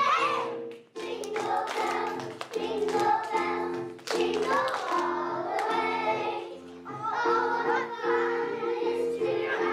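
Music with a steady rhythmic bass line and children singing, broken by a brief pause about a second in, with a few sharp hand claps.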